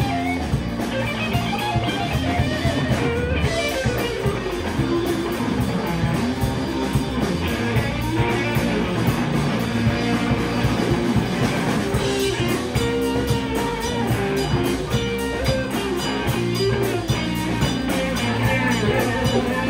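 Live rock band playing: electric guitars over a drum kit, the guitar carrying melodic lines throughout.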